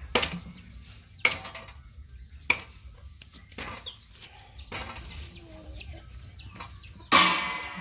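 Chickens clucking, with sharp knocks about a second apart and a loud one near the end, and small high chirps between them.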